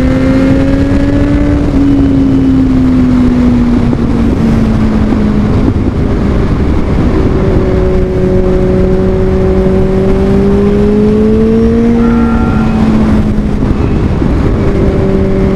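Motorcycle engine running at a steady cruising pace, its note drifting slowly lower and then back up, under heavy wind rush on a rider-mounted microphone.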